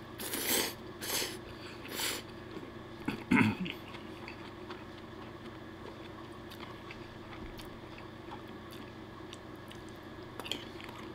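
A man slurping spaghetti in three quick hissing pulls, then a louder slurp about three seconds in, followed by quiet chewing.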